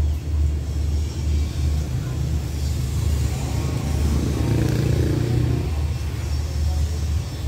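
Diesel passenger train's engine rumbling low and unevenly at a distance, growing a little fuller about halfway through.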